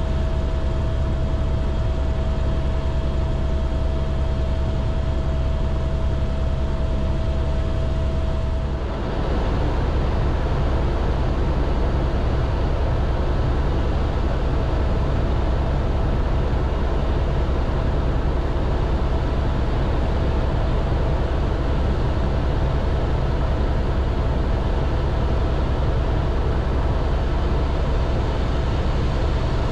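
Airbus H125 (AS350 B3e Esquilo) single-turbine helicopter in flight: a steady, loud rotor rumble and turbine noise with a steady whine over it. About nine seconds in the sound dips briefly and shifts in character, then runs steady again.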